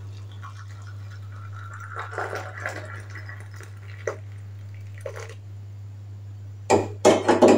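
Boiled coffee poured from a stainless steel saucepan into a glass mug, a trickling pour lasting about three seconds. A couple of light knocks follow, then the saucepan clatters loudly as it is set back down on the gas stove near the end.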